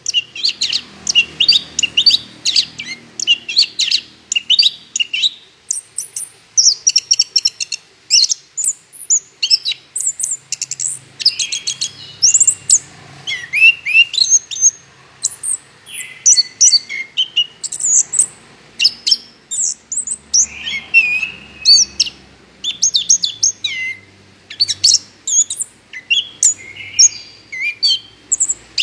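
Orange-headed thrush (anis kembang) singing without pause in full voice: quick, varied phrases of high sweeping whistles and chattering notes, one after another with only short gaps between them.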